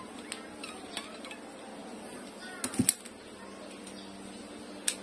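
Small clicks and light ticks of nylon fishing line and a metal hook being handled while the line is tied onto the hook, with a short run of louder clicks near the middle, over a faint steady low hum.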